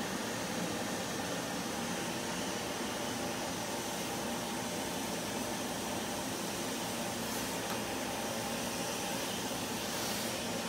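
Steady whir of a running fan, an even hiss over a low hum that holds at one level throughout.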